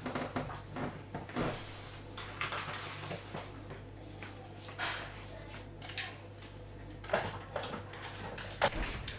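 Scattered knocks and clicks of household objects being handled and set down, over a steady low hum.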